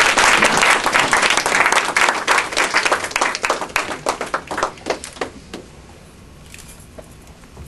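Audience applauding: a dense run of clapping that thins to scattered claps and dies out about five seconds in.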